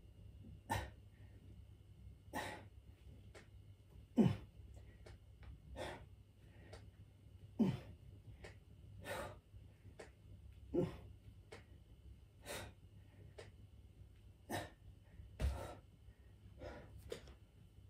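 A man breathing out hard and grunting in time with each leg raise of an abdominal exercise, one sharp exhale every second and a half to two seconds, some with a short falling voiced grunt.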